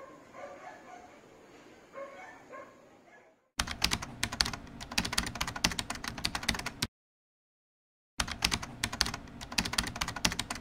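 Computer keyboard typing sound effect: rapid key clicks in two runs of about three seconds each, broken by a second of dead silence, after a few seconds of faint background sound.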